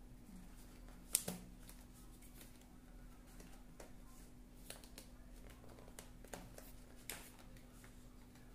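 Faint rustling and light taps of cardboard packaging being handled, the sharpest tap about a second in, over a steady low hum.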